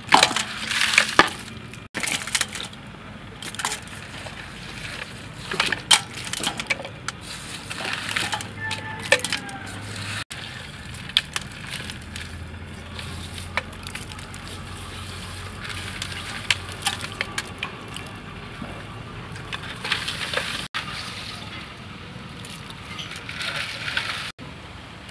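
Crushed ice crunching and clinking in a metal basin as hands dig live giant river prawns out of the ice water, with their hard shells and long claws clattering against one another and the steel bowl. Irregular sharp clicks and crackles, broken by a few abrupt cuts.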